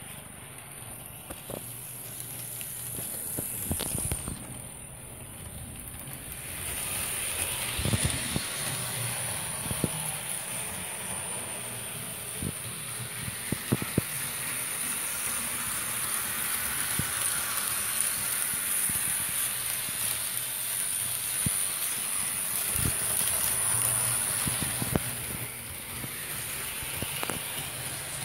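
Model electric locomotive running on the track: a steady whirring and rolling hiss that grows louder about six seconds in, with scattered sharp clicks.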